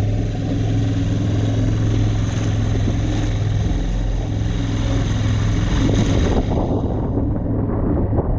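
Outboard motor on an inflatable dinghy running steadily, with water hissing and splashing along the boat.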